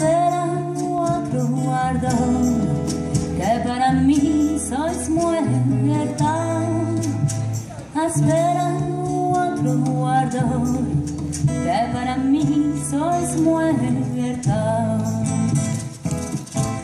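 Small acoustic band playing live: a woman sings a melody with gliding, ornamented phrases over a strummed acoustic guitar and steady low bass notes.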